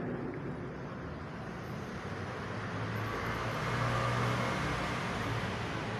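Steady low rumble and hiss that swells about three seconds in and eases off near the end.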